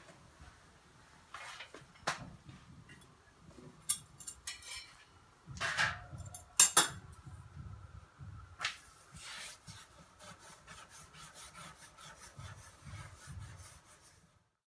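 Scattered light clicks, knocks and rubbing from handling, the loudest a pair of sharp clicks about seven seconds in.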